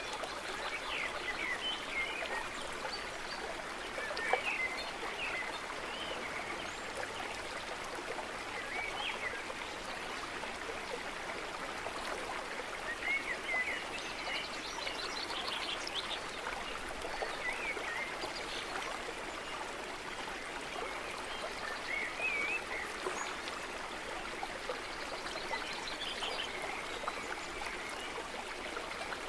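Steady rush of running water, like a stream, with short high chirps scattered throughout.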